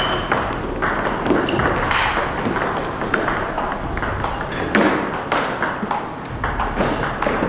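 Table tennis rally: the ball clicking back and forth off the paddles and the table in quick, irregular hits.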